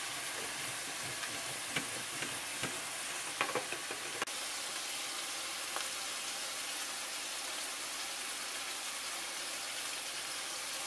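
Ground beef sizzling steadily as it browns in a hot skillet, with a few light clicks and taps in the first four seconds.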